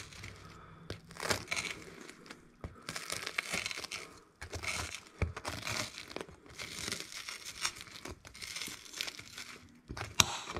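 Table knife sawing through the crisp, pan-toasted bread of a grilled cheese sandwich: crunching, crackling strokes in irregular runs with short pauses between them. A sharp click comes near the end.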